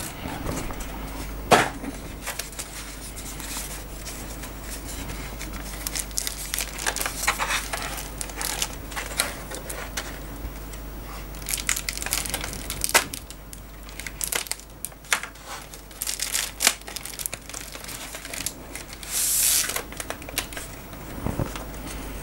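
Clear plastic wrapping and bubble wrap crinkling and crackling as they are pulled off a replacement phone screen box, in irregular rustles with a sharp snap about a second and a half in and a louder rustle near the end.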